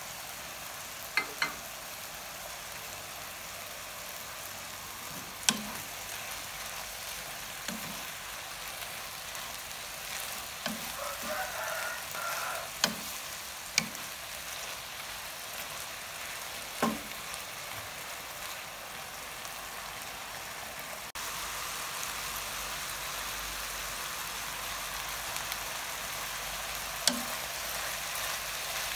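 Chicken pieces sizzling in oil and a little sauce in a nonstick wok as a spatula stirs them: a steady frying hiss with occasional sharp knocks of the spatula against the pan.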